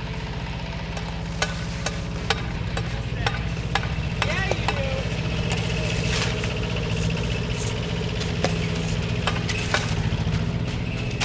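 Mini excavator engine running steadily, with scattered sharp clicks and scrapes from digging in a packed snow pile.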